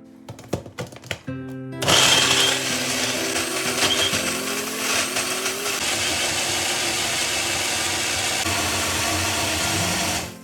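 Electric mixer grinder grinding ginger and garlic with salt, turmeric powder and oil into paste. A few light clicks come first, then the motor starts suddenly about two seconds in, runs steadily for about eight seconds and cuts off just before the end.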